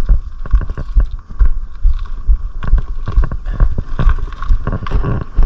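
Mountain bike jolting over rough, wet trail: irregular thumps and knocks several times a second as the bike and camera rattle over the ground.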